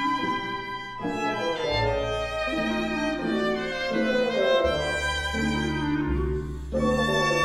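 Chamber-ensemble film score: a violin melody over low sustained bass notes that shift every second or so.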